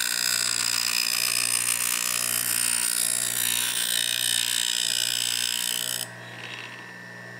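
Bench grinder running with a steady motor hum while the steel of a drawknife is held lightly against the wheel, giving a continuous high grinding hiss as a bevel is ground on the back of the blade. About six seconds in the blade comes off the wheel and only the motor hum remains.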